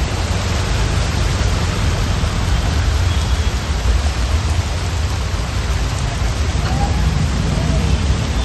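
Heavy rain pouring steadily, with a deep steady rumble underneath.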